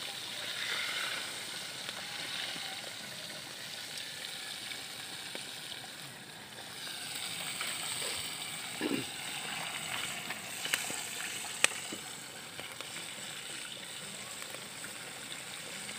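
Steady hiss of pork chops frying in hot oil, with a few sharp clicks about two-thirds of the way in.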